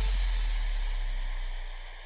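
The tail end of an electronic dance music track: a deep bass note dies away over about two seconds, leaving a faint steady hiss.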